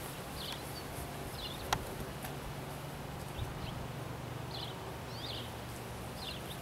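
Small birds chirping, short quick calls repeated again and again, over a steady low hum. A single sharp click comes about two seconds in.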